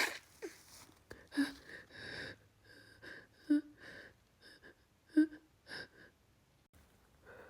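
A woman's short, hitching gasps and sniffly in-breaths, about a dozen spread over several seconds, a few with a small voiced catch. These are the catching breaths of a sneeze building up.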